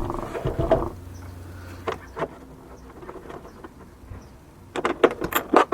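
Small hand-tool work on glove box hardware: a faint steady hum early on, a couple of light clicks, then a quick run of sharp clicks and light metallic rattles near the end as loose fasteners are worked out.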